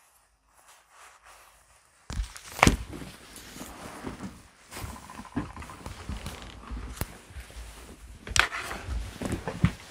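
A man getting up out of his chair. After about two seconds of near silence come clothes rustling and the movement sounds of rising, with scattered knocks and thumps. The loudest are about two and a half seconds in, a sharp click near seven seconds, and another thump about eight and a half seconds in.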